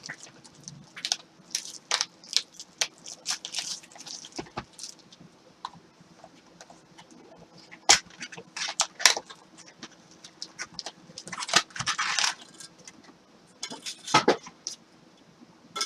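Trading card packs being opened and the cards handled: wrappers crinkling and tearing, and cards clicking and sliding against each other in short, scattered bursts, busiest in the second half.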